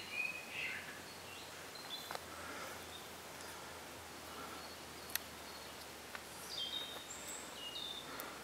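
Faint birdsong: a few short, high chirps and whistled calls from small birds over a quiet outdoor background, with a single sharp click about five seconds in.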